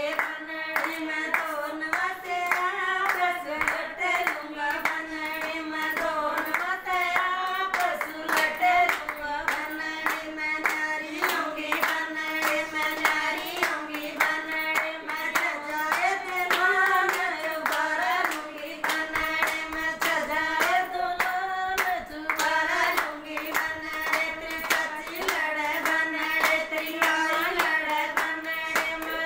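Group of women singing a folk song together, keeping time with steady rhythmic hand claps.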